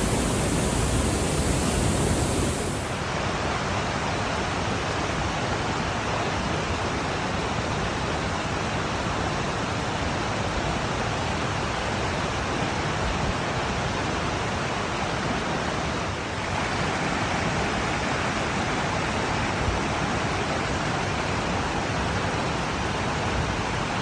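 Rushing water of a waterfall and river, a steady, even roar that shifts slightly in tone about three seconds in and again around sixteen seconds.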